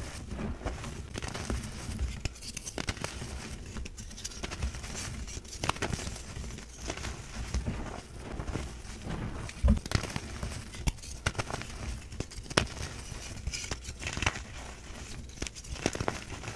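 Hands squeezing and crumbling reformed gym chalk in a tray of loose chalk powder: soft, irregular crunching and crackling as the pressed chalk breaks apart, with one low thump about ten seconds in.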